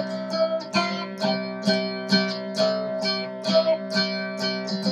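Cigar box guitar playing an instrumental break: a quick run of picked melody notes over open strings ringing steadily underneath.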